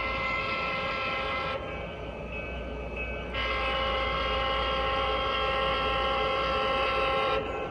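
Diesel air horn of an HO-scale C&O GP9 model locomotive, played through its onboard sound speaker: one blast ending about a second and a half in, then a longer blast from about three and a half seconds in until near the end, over a low steady hum.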